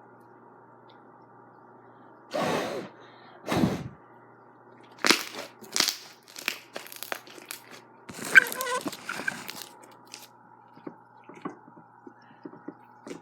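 Slime being squeezed and worked by hand, giving a string of crackling and popping sounds, densest about two-thirds of the way in, with a few small pops near the end.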